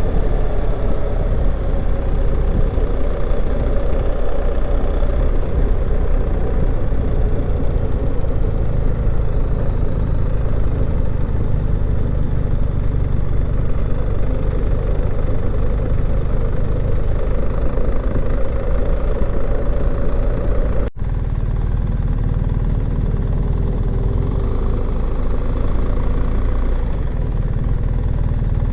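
A vehicle driving, its engine and road noise heard from inside as a steady low rumble. About 21 seconds in, a brief break gives way to slightly different running noise.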